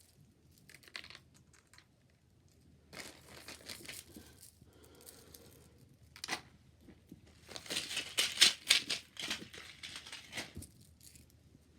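Packaging crinkling and heart-shaped beads rattling and clicking while a tangled pack of beads is opened and pulled apart, in scattered bursts, the busiest stretch about eight seconds in.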